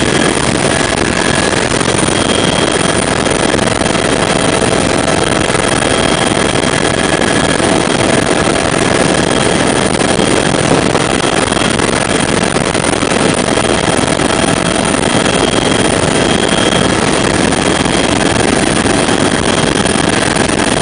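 Loud, steady cabin noise of a Bell 412 helicopter in flight: its twin turboshaft engines and rotors make a dense, even rush with a few faint, steady whines above it.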